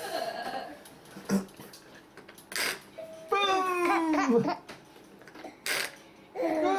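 Infant in a doorway bouncer vocalizing: two drawn-out squeals that fall in pitch at the end, with two short breathy huffs of laughter between them.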